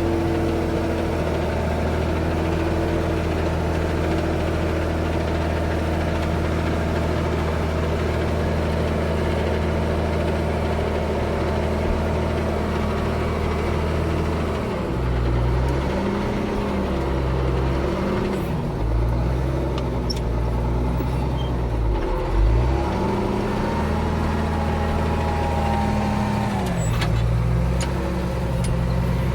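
Ford 9700 tractor's six-cylinder diesel engine running steadily for about fifteen seconds. Its speed then rises and falls again and again as the tractor strains to back out of a wet hole where it is nearly stuck.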